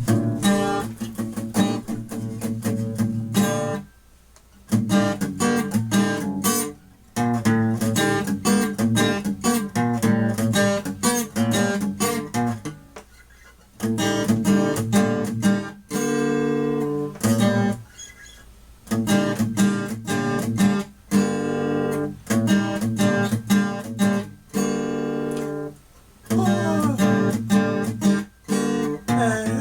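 Guitar strumming chords in an unusual tuning, in stop-start phrases broken by short pauses. Near the end come sliding, bending notes.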